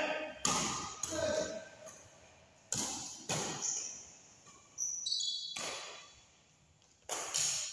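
Badminton rackets striking a shuttlecock back and forth in a doubles rally, about half a dozen sharp hits roughly a second apart, each echoing briefly. A short high squeak comes about five seconds in.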